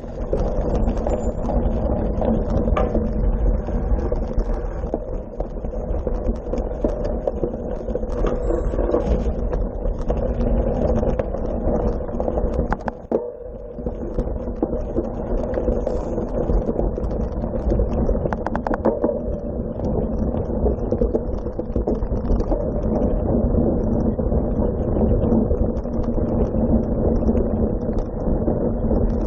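Wind buffeting a bike-mounted action camera's microphone, mixed with tyre rumble as a cyclocross bike is ridden over dirt and grass. A few sharp clicks and rattles from the bike come through, and the noise briefly drops a little past halfway.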